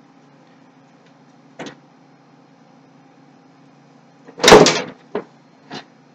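Side panel of a computer case being taken off and handled: a light click, then a loud clatter lasting under a second about four and a half seconds in, followed by two smaller knocks.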